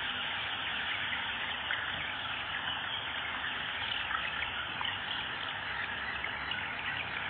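A large brood of young chicks of local Arab chickens peeping all at once, a dense, continuous chorus of many overlapping high peeps.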